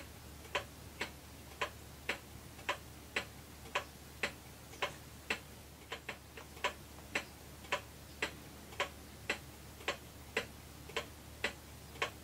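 The 1934 Ingraham Bedford wall clock's time-only pendulum movement, freshly cleaned and reassembled, ticking steadily at about two ticks a second. A few extra faint clicks come about halfway through.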